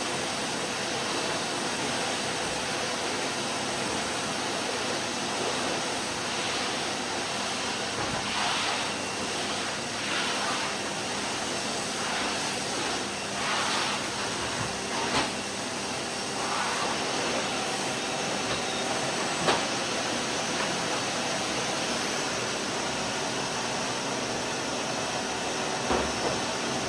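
Vacuum cleaner running steadily: an even rushing hiss with a faint motor hum. The hiss swells briefly a few times around the middle, and a few soft clicks come through later on.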